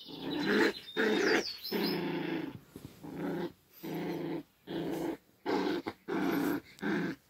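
Puppy play-growling in a string of short growls, about one a second, while biting and tugging at a plush toy.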